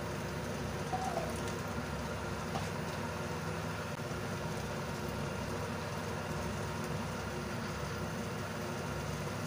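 A steady low hum with a faint hiss, unchanged throughout.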